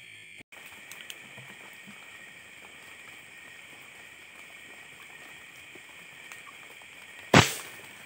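Steady high chirring of night insects, broken near the end by a single sharp rifle shot, the loudest sound, with a short decaying tail.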